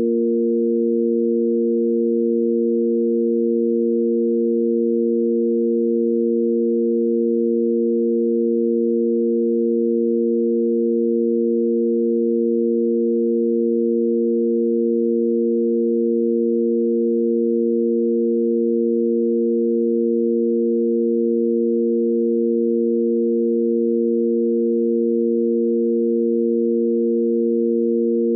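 Sine-wave tanpura drone in A#: three pure, unchanging sine tones on the root, the fifth and the octave, held steady as a pitch reference for singing.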